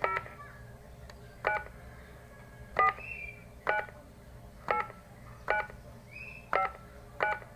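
Telephone keypad DTMF tones, about eight short presses roughly a second apart, as a mobile number is keyed in at an automated phone menu's prompt.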